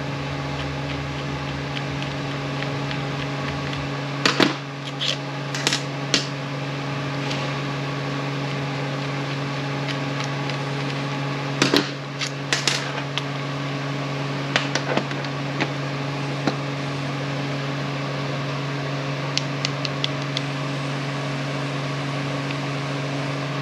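A steady mechanical hum runs throughout. Over it come scattered sharp clicks and taps of small metal parts being handled and fitted during an impact wrench repair, in a few clusters with quiet stretches between.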